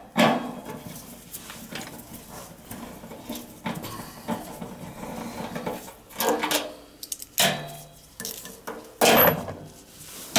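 Metal clanking and scraping from hand work on a gas furnace's sheet-metal blower assembly as it is being taken apart, with several sharp knocks, the loudest about nine seconds in.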